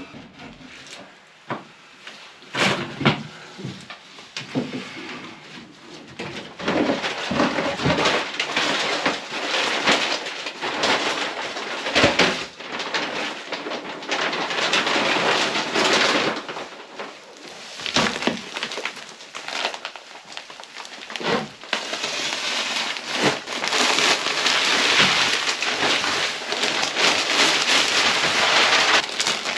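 Sheet plastic rustling and crinkling as it is unrolled and spread over a plank floor, with scattered knocks. Near the end, loose wood chips pour from a bag onto the plastic.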